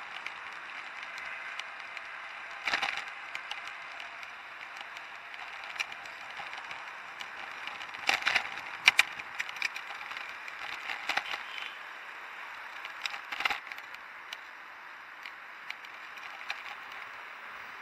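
B'Twin bicycle riding over paving stones: a steady hiss of tyre and wind noise, with several rattling clatters from the bike and its handlebar camera mount as it jolts over bumps, the sharpest cluster about halfway through.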